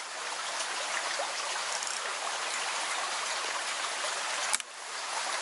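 Steady rushing of a small creek's flowing water, with one sharp click about four and a half seconds in.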